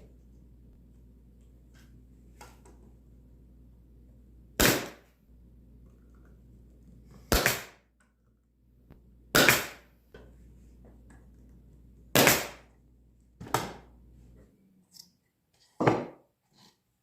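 Quarter-inch crown stapler firing six times, a sharp crack every two to three seconds, driving staples into soft poplar board. A faint low hum underneath stops about three-quarters of the way through.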